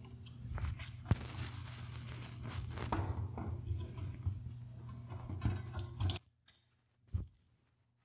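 Small clicks, taps and rustling of bicycle parts being handled in a workstand, with one sharp click about a second in. The sound cuts off abruptly about six seconds in, and two short clicks follow.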